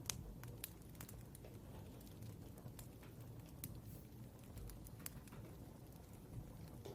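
Quiet room tone with faint, irregular small ticks and taps, the sounds of someone working at a desk.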